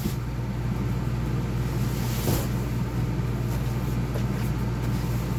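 Steady low mechanical hum, with a brief rustle about two seconds in.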